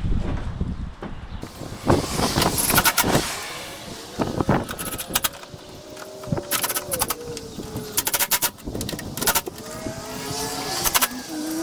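Repeated sharp clicks and knocks of a plastic headlight assembly being handled and fitted back into place. Behind them is a vehicle engine's faint hum that shifts in pitch and rises near the end.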